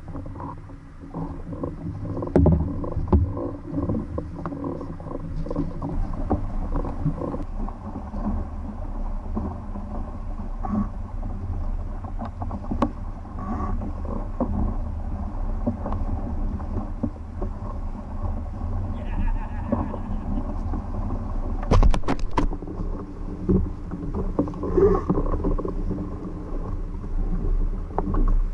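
Water rushing and slapping against the hull of a Hobie Getaway sailing catamaran under way, with wind buffeting a microphone mounted low on the hull. A few sharp knocks about three quarters of the way through.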